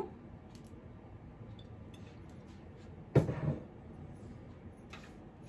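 Quiet room with a few faint ticks, then about three seconds in a single short clunk of glass as the swing-top oil bottle is handled after pouring.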